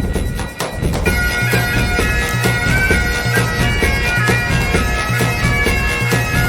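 Background music: a sustained, wind-instrument-like melody over a steady drum beat and a repeating bass line.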